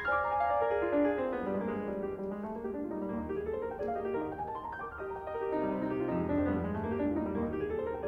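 Piano music with flowing runs of notes that sweep down and then back up, twice over.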